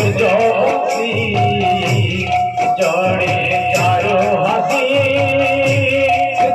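Live Odia kirtan music: a devotional bhajan sung over a steady drum beat, with small hand cymbals striking in rhythm and a held steady tone underneath.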